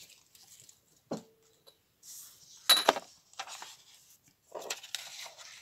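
Paper handling on a craft mat: a light knock about a second in, then a short, sharp tear about three seconds in as the excess edge of a comic-book page is ripped off along a steel ruler, followed by soft rustling as the page is pressed flat.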